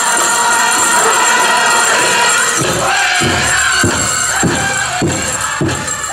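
Powwow drum group singing a chicken dance song. The big drum's steady beat comes in about two and a half seconds in, at a little under two strokes a second, under the voices.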